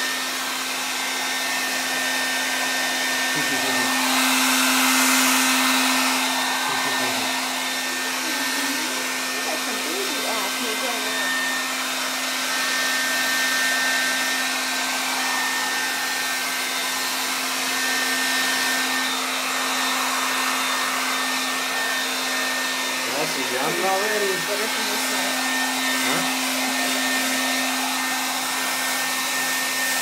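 Hair dryer blowing steadily with a constant hum, swelling slightly about four to six seconds in, as it dries a baby after her bath.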